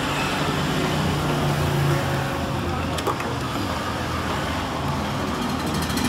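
Steady low engine rumble in the background, with a single click about three seconds in.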